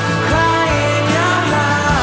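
Background music: a song with a gliding, wavering melody line, likely sung, over steady accompaniment.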